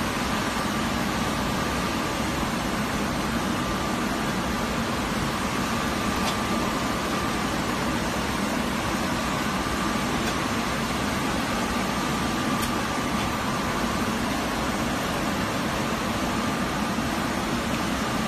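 Heat-shrink tunnel of a kitchen-towel roll packing machine running: a steady blower and conveyor whir with a low hum and a faint high whine.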